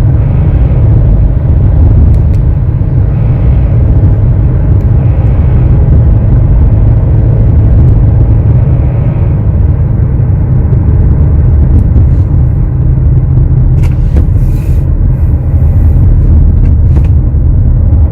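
Kia Sorento running on the road, heard from inside the cabin: a steady, loud low rumble of engine and road noise, with a few faint clicks near the end.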